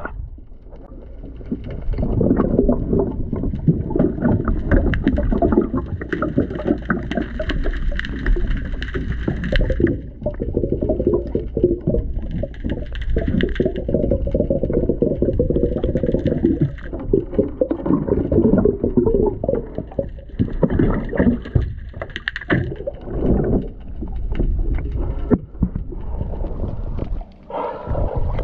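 Muffled underwater noise heard through a submerged camera: water movement and bubbles, with a run of small clicks and knocks from hands working on a saildrive propeller.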